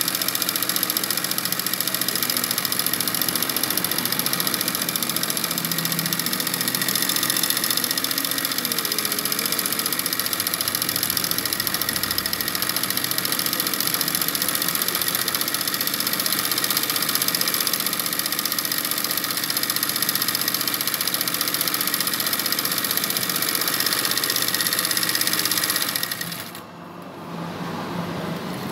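Household sewing machine running steadily at speed, stitching free-motion machine embroidery. About two and a half seconds before the end it winds down almost to a stop, then starts again more quietly.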